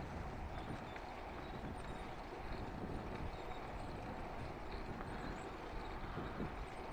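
Schwinn Continental bicycle being ridden: a steady low rumble of rolling and wind noise, with faint scattered light clicks.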